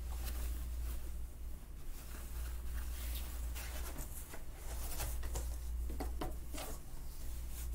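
Rustling and light scraping of a cotton dress shirt being folded and a cardboard box being rummaged through, in irregular soft clicks and rustles over a steady low hum.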